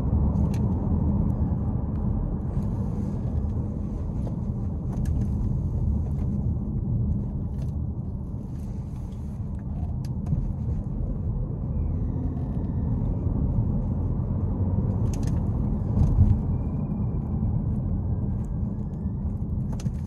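Steady low road and drivetrain rumble inside a moving Chevrolet Malibu hybrid, with a faint high squeal coming and going briefly about halfway through and again near the end. This is the belt-like squeal that comes when the engine shuts down or regeneration kicks in, which the mechanic later traces to crankcase vacuum pulling at the front crankshaft seal.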